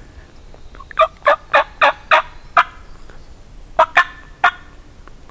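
A series of loud turkey yelps: six sharp notes at about three a second, a short pause, then three more.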